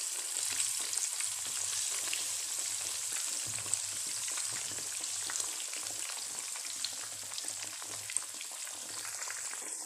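Battered eggplant slices deep-frying in hot oil in a wok over a medium-to-low flame: a steady sizzling hiss with scattered small pops.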